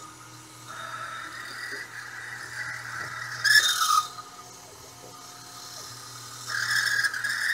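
CNC milling machine drilling holes with a 5 mm drill into a sand-cast aluminium engine casting: a steady motor hum under two spells of drill cutting noise, with short whines starting and stopping between them. The loudest moment is a brief burst about halfway, with a falling tone.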